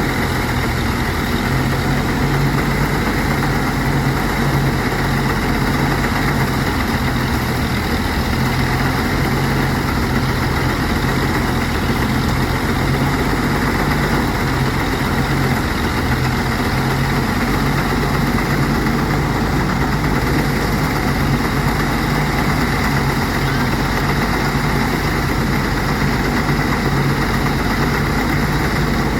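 Engine-driven rice threshing machine running steadily, threshing rice with a continuous low hum.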